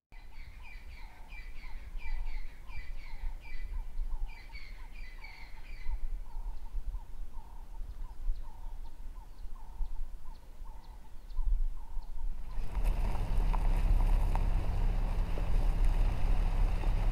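A bird calling over and over in a quick series of short notes, thinning out after about six seconds and stopping near twelve. About thirteen seconds in, a car driving on a dirt road takes over: a steady low rumble with road noise.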